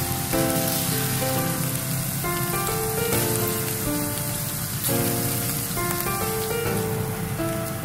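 Thin-sliced beef, glazed in sugar and soy sauce, sizzling in a nonstick frying pan with a steady hiss, under background music with a changing melody.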